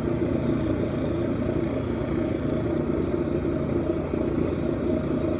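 Lapidary wheel's motor running steadily while a stone is held against the 1000-grit wheel to polish it and take down its edges.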